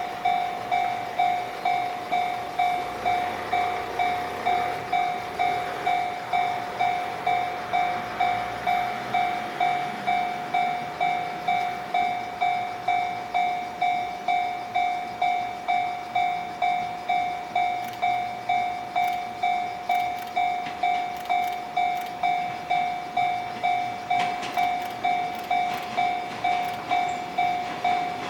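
Level-crossing warning bell ringing in a steady electronic ding-ding at about one and a half strokes a second, while a 115-series electric train runs past over the crossing, with sharp wheel clicks over the rail joints in the last third.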